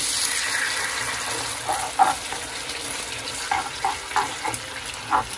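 Gochujang sauce sizzling in hot sesame oil in a pan with a steady hiss. From about one and a half seconds in, a stirring utensil knocks and scrapes against the pan several times.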